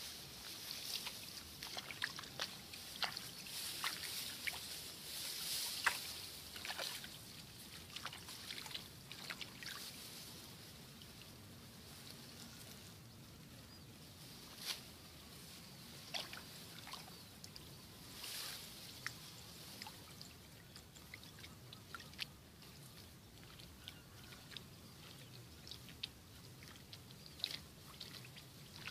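Weeds being pulled by hand from among rice plants: rustling of leaves and stems with many short snaps and crackles, busiest in the first ten seconds and sparser after.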